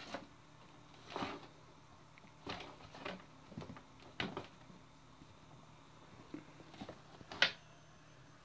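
Young kittens scuffling and pawing at a tangle of cables: scattered light knocks, taps and rustles at irregular moments, the sharpest click near the end.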